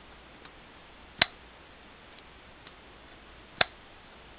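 Boker Burnley Kwaiken folding knife with a flipper mod, worked on its IKBS ball-bearing pivot: two sharp clicks about two and a half seconds apart as the blade snaps into place, with a few faint handling ticks between.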